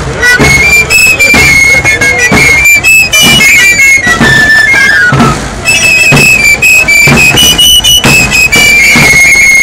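Tamborileros playing sevillanas on pipe and tabor: shrill three-hole pipes (flautas rocieras) carry a high melody over regular stick beats on the tamboril drums. The music is loud throughout.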